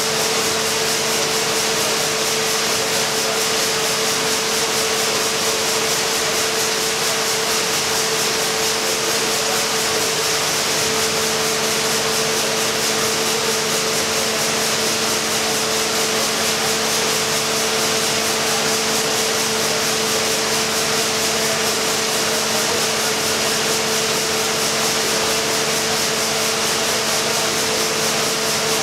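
Engine-room noise of a Lobnitz-built triple-expansion reciprocating steam engine running at a steady speed: an even mechanical clatter and rush with a constant hum underneath.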